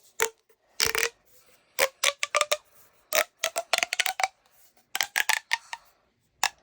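Plastic pop tube fidget toys being stretched and squeezed, their ridges snapping in quick runs of clicks and pops with a short hollow ring, in bursts about every second.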